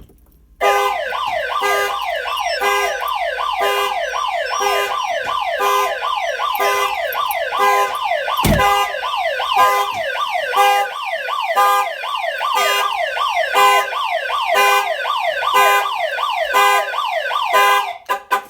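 Autoshield AS-475A car alarm's bullhorn siren going off, set off by the door being opened while the alarm is armed. It is a loud, rapidly sweeping siren tone in repeating cycles of about one a second, and it cuts off near the end. There is a single low thump about halfway through.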